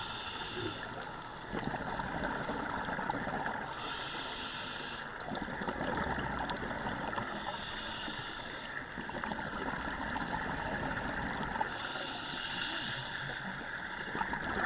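Scuba regulator breathing heard underwater: a hissing inhale about every four seconds, with bubbling, gurgling exhales in between.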